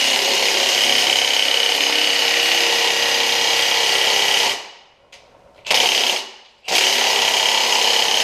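Milwaukee Fuel cordless impact wrench hammering on a tight crankshaft pulley bolt that is not breaking loose. It runs steadily, stops about four and a half seconds in, gives a short burst, then runs again near the end.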